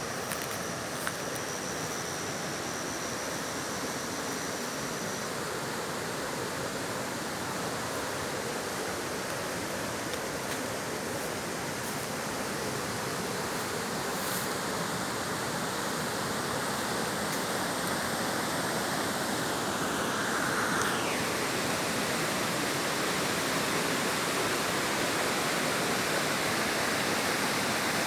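Steady rushing of running water, like a stream or small waterfall. A faint high whistle sounds for the first few seconds, and a brief falling whistle comes about twenty seconds in.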